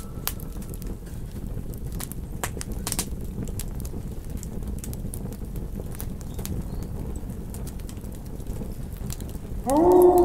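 Campfire crackling, with frequent sharp pops over a steady low rumble. Near the end a wolf howl starts, sweeping quickly up in pitch, after the last howl fades away in the first second.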